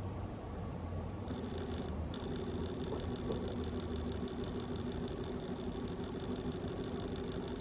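A steady mechanical hum: a low drone with a high, thin whine over it. The whine comes in about a second in, drops out briefly and then holds.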